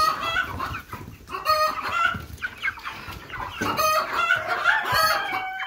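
A flock of near-grown Cornish Cross meat chickens calling in their pen: many short, high peeps and clucks overlapping one another.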